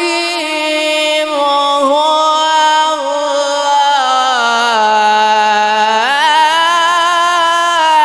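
A man's voice reciting the Quran in melodic tajwid style, holding one long unbroken drawn-out note over a microphone; the pitch steps down around the middle and swings back up about six seconds in.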